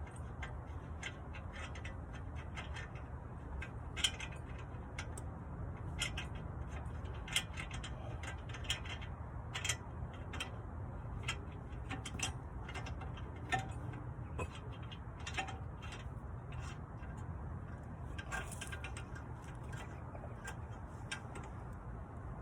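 A hand ratchet wrench clicking in short, irregular runs as a nut is run down onto a shock absorber, with metal clicks of the tool. Under it is a steady low hum.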